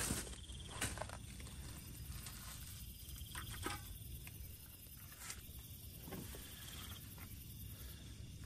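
Soft rustling with scattered light clicks and knocks as camping gear and a paper bag are moved about and packed away in a car's cargo area.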